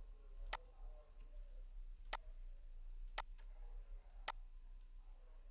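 Four faint computer mouse clicks, about one a second, as items are selected on screen.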